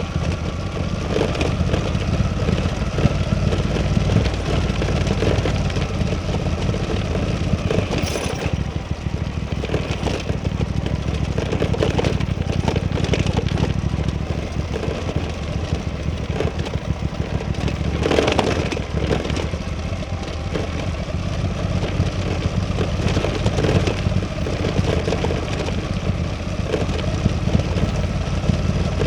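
Suzuki V-Strom 800DE's parallel-twin engine running steadily on a ride, with no big revs. Two brief sharp crackling noises come about eight and eighteen seconds in.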